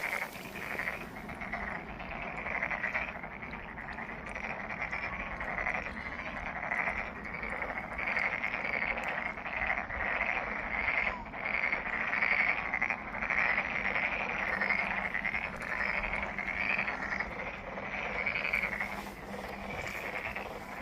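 A dense chorus of many pond frogs croaking at once, overlapping with no pause.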